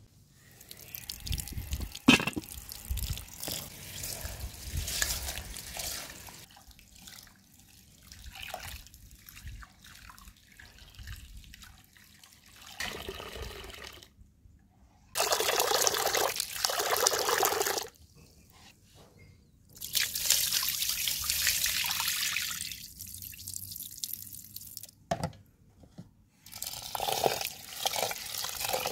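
Water poured or run into a metal bowl in two long spells, with splashing and dripping between them as something is washed by hand in it. A single sharp knock about two seconds in.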